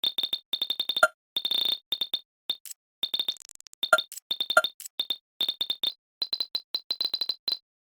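Fast typing on a computer keyboard: quick runs of key clicks, each with a high ringing ping, and three heavier, deeper keystrokes about a second in and near four and four and a half seconds.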